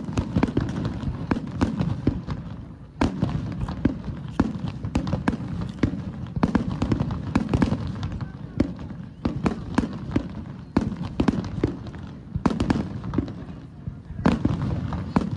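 Aerial fireworks display: a dense, rapid series of shell bursts and crackling reports, with heavier booms about three seconds in and near the end.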